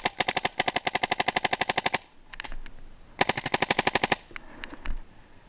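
Dye DAM magazine-fed paintball marker firing rapid bursts of about ten shots a second: a long burst that stops about two seconds in, then a shorter burst of about a second a little later.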